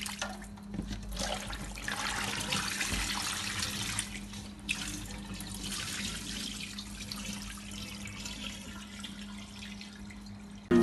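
Water splashing and running in a kitchen sink as raw chicken pieces are washed by hand in a metal bowl of lime water.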